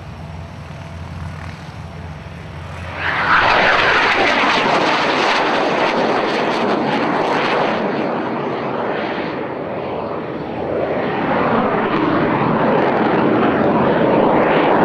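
Cessna A-37 Dragonfly's twin General Electric J85 turbojets at display power as the jet flies past low and climbs away. The jet noise swells suddenly to a loud, rushing roar about three seconds in, eases slightly around the middle, then builds again.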